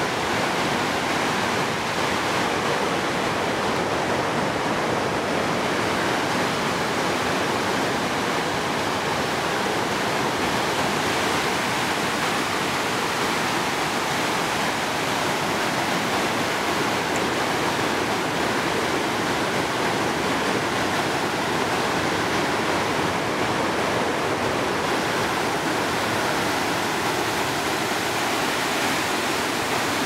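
Whitewater rapids of a mountain river rushing over rocks and logs: a steady, unbroken rush of water.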